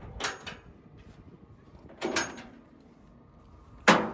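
Three short clunks and scrapes, the loudest with a sudden start near the end.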